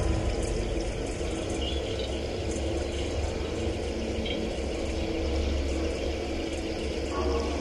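Experimental electronic soundscape: a steady low synthesizer drone with a few faint held tones above it and scattered faint crackles and ticks.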